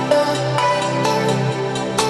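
Electronic workout music with a steady beat.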